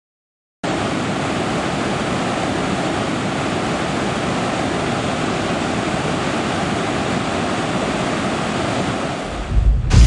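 Steady rushing of a large waterfall, an even noise that starts abruptly about half a second in. Near the end it fades and a deep rumble of thunder swells in.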